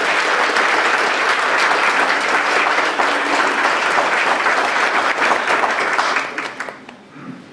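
Audience applauding, a steady patter of many hands clapping that dies away about six seconds in.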